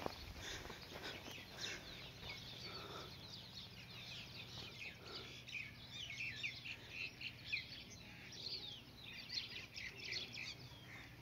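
Small birds chirping: many short, high calls overlapping, busiest in the second half, with a faint steady low hum underneath.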